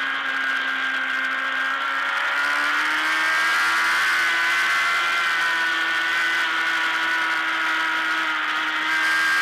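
Racing motorcycle engine heard from on board, running at high revs under load. Its pitch steps up about two seconds in and then holds steady.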